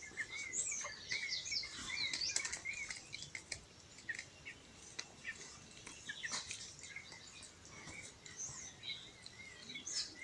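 Birds chirping and calling in the background. One repeats a short wavering whistle over and over, while others give higher chirps, and a few faint clicks and rustles of hands working come through now and then.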